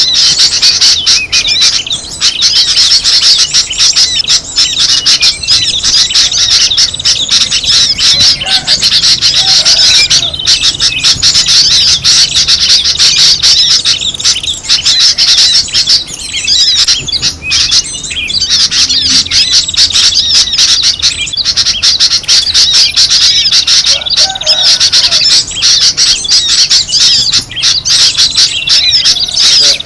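Bird-lure recording of small songbirds chattering and twittering all at once: a dense, unbroken flurry of rapid high-pitched chirps with only a few brief lulls.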